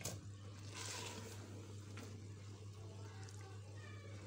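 A spoon stirring thick mutton and bottle gourd curry in a clay handi: faint wet stirring and scraping, over a steady low hum.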